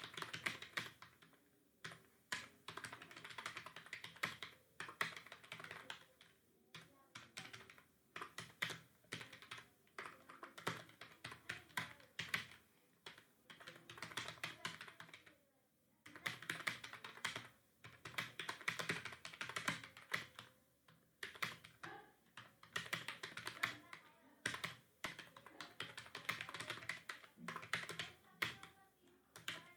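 Fast typing on a computer keyboard: dense runs of key clicks lasting a few seconds each, broken by brief pauses.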